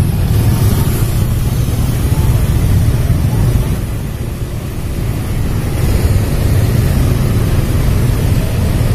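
Steady low rumble of a slowly moving vehicle heard from on board: engine and road noise, with no clear tones.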